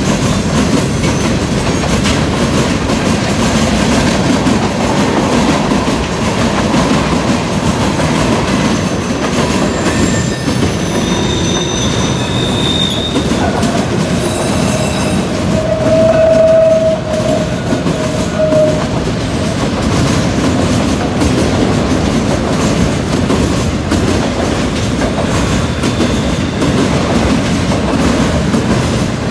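Freight train cars rolling past close by, with a steady rumble of steel wheels on the rails. Short wheel squeals sound in the middle; the loudest is a mid-pitched squeal lasting a few seconds just past halfway through.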